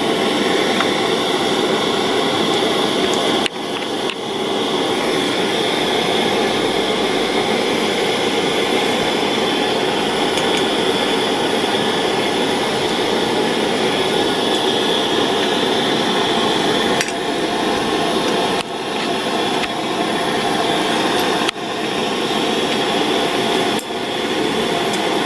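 Steady hissing noise that dips briefly a few times, with a few light clinks of small metal tools.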